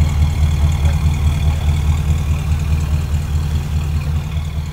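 1955 Chevrolet panel truck's engine idling, heard close at the exhaust tailpipe as a steady, deep, evenly pulsing rumble.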